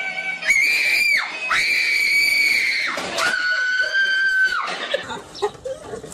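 A girl screaming: three long, high-pitched shrieks, the third lower in pitch than the first two.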